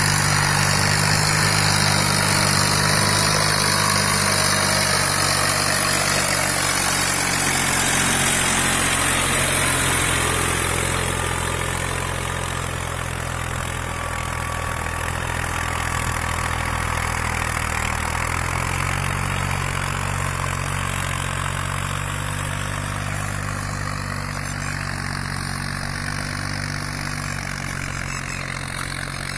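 Diesel farm tractor engines running steadily under load while pulling tillage implements through the soil. The sound drops somewhat about ten seconds in as the nearest tractor draws away.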